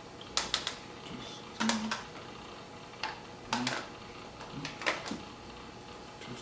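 A few sharp clicks and knocks in small clusters, about eight in all, over a faint steady background hum.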